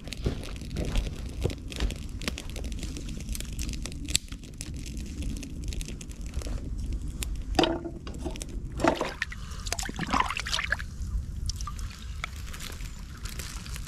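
Small wood fire crackling in a sheet-metal camp stove, with steady sharp snaps, and footsteps rustling on dry twigs and moss; a few louder rustles and knocks come a little past the middle.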